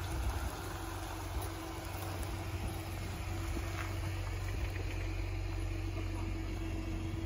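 Jeep Wrangler's engine idling as it creeps forward towing a pop-up camper: a steady low rumble with a faint steady hum above it.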